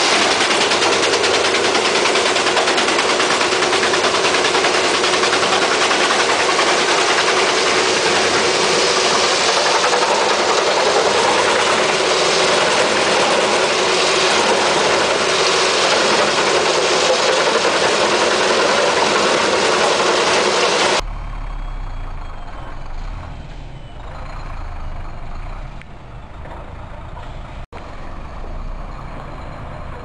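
Starchl U-1200 drum wood chipper running under load, chipping logs with a loud, steady rushing noise and a steady hum. About 21 seconds in it cuts off abruptly to the quieter, lower sound of the lorry's engine running.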